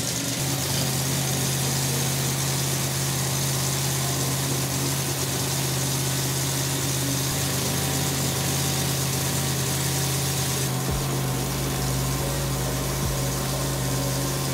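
Supercharged 454 cubic-inch Chevrolet big-block V8 running steadily on an engine dyno at a constant fast idle of about 2000 rpm. This is the fresh engine's camshaft break-in run.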